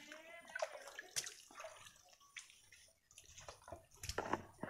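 Feet wading through a shallow stream, with irregular splashing and sloshing of water around the legs.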